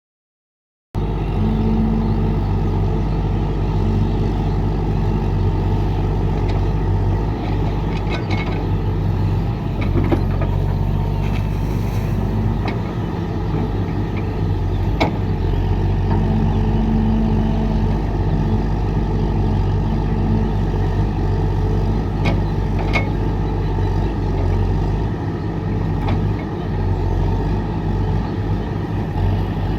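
Excavator's diesel engine running steadily under work, with a few short knocks now and then.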